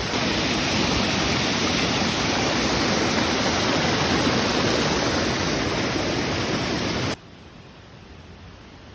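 Waterfall rushing steadily, a loud even roar of falling water that cuts off abruptly about seven seconds in, leaving only a faint hiss.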